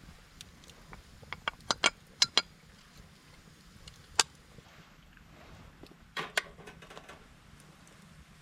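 Sharp clicks and knocks: a quick run of about seven between one and two and a half seconds in, a single loud one a little after four seconds, and a short rattling cluster around six seconds.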